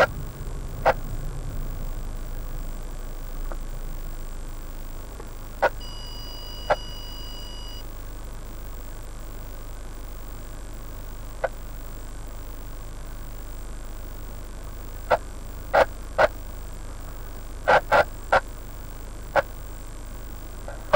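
Car interior with the engine idling at a standstill: a low steady hum after the road rumble dies away in the first two seconds as the car rolls to a stop. A dozen or so sharp clicks are scattered through it, bunched in the second half, and a faint high electronic tone sounds for about two seconds near the middle.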